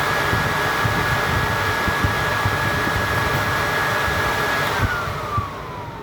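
Bakbar turbofan oven's convection fan motor running at speed: a steady rush of air with a high motor whine. About five seconds in it is switched off and winds down, the whine falling in pitch as it slows.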